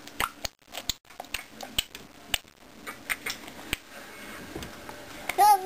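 Irregular sharp clicks and taps, a few each second, then about five seconds in a baby lets out a loud, wavering squeal.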